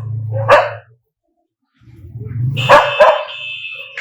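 Dogs barking aggressively: one sharp bark about half a second in, a short silence, then two quick barks in a row near the end.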